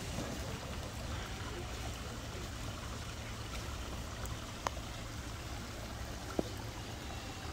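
Steady rushing of flowing water, with two short clicks in the second half.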